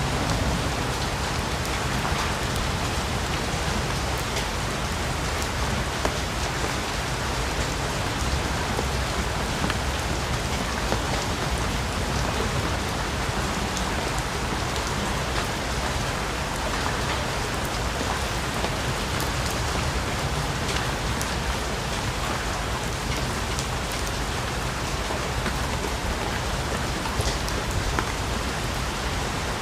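Steady heavy rain in a rainforest, a dense even hiss with many individual drops ticking on leaves and surfaces and a low rumble underneath.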